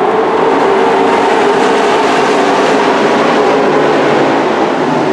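A pack of dirt-track race trucks running on the oval, several engines blending into one steady, loud sound.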